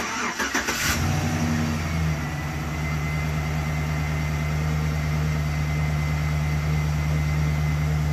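Pickup truck engine started with the starter: a second of cranking, then it catches and idles steadily.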